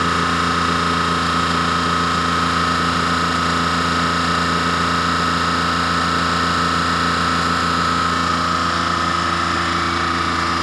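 Old mini van's engine idling steadily, heard close to its exhaust tailpipe.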